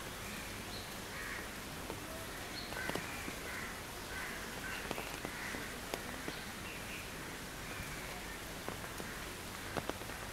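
Steady rain falling on foliage, with scattered drops ticking, and a bird giving repeated harsh calls every second or so.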